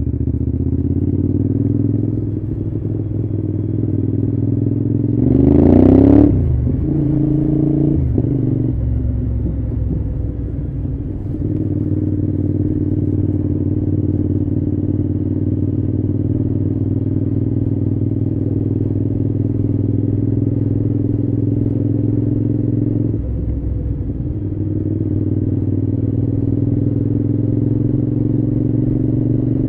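Cagiva V-Raptor 1000's 996 cc V-twin engine running steadily under way, with a brief louder rise and fall in pitch about six seconds in and a short dip in the engine note near the end.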